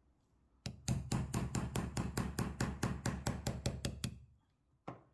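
Rapid light hammer taps on a small steel pin punch, about six a second for some three seconds, then one last tap near the end: driving a roll pin out of a CZ Bren 2 bolt carrier's charging handle.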